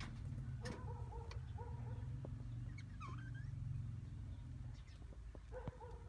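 Budgerigars chirping: a run of short repeated chirps near the start, one longer call in the middle that rises and falls, and another run of chirps near the end. A steady low hum lies underneath, with a few light knocks.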